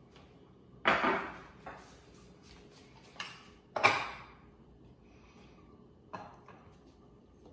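Clatter of kitchenware: a ceramic plate handled on the counter and a serving spoon knocking against a steel stockpot. There are two loud knocks, about one and four seconds in, and a few lighter clinks between them and near the end.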